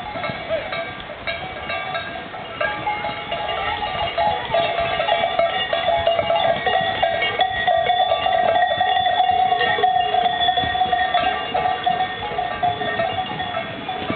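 Bells worn by a herd of Mérens horses, clanging continuously as the horses walk past. Several bells ring at different pitches, growing louder about four seconds in.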